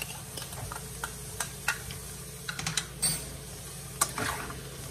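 Metal spoon knocking and scraping against a pot while stirring chunks of eddoes, a run of short irregular clicks with the sharpest knock about four seconds in, over a light sizzle of the frying.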